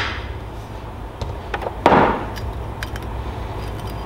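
Valve cover being worked loose and lifted off a Predator 212cc Hemi engine: a clunk about two seconds in, with light metallic clicks and taps, over a steady low hum.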